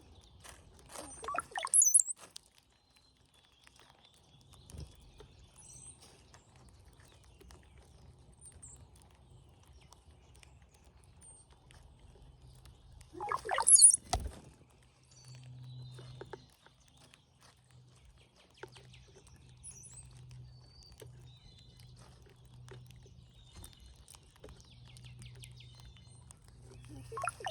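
Brown-headed cowbirds singing: twice, about a second in and again about halfway, a short burst of low bubbling gurgles that rises into a thin, high whistle. Faint high squeaky calls and light ticking come in between.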